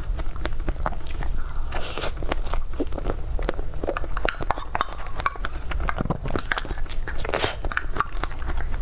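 Close-miked eating: biting, chewing and wet mouth clicks in quick irregular succession.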